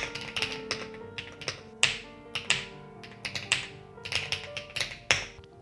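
Typing on a computer keyboard: irregular keystroke clicks, a few sharper than the rest, over background music with sustained notes.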